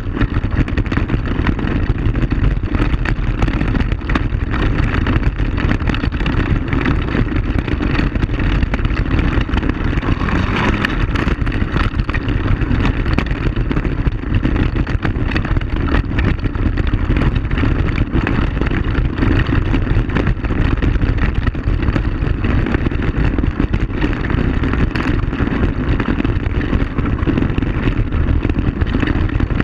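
ATV (quad bike) engine running steadily while riding a gravel trail, with frequent knocks and rattles from the bumpy ride.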